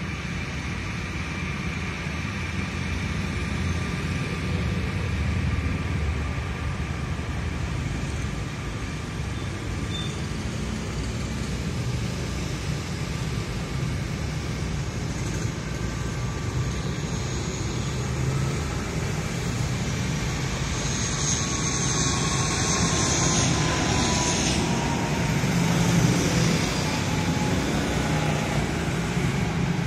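An aircraft on landing approach, its engines a steady rumble with a rising whine that grows louder over the second half and peaks late on, with a tone that falls slowly in pitch as it passes.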